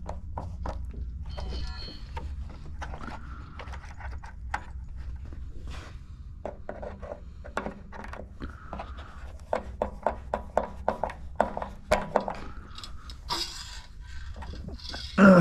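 Scattered clicks, taps and rubbing from hand work with a screwdriver and wires at an electric water heater's thermostat terminals, reconnecting the wiring, over a steady low hum.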